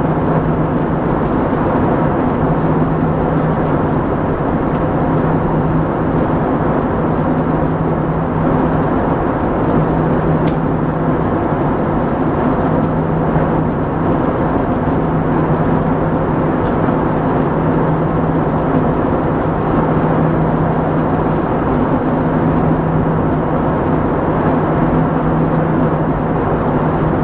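Steady cabin roar of an Airbus A321-231's IAE V2500 turbofan engines and airflow, heard from a window seat beside the engine in flight, with a low hum running under it that wavers slightly.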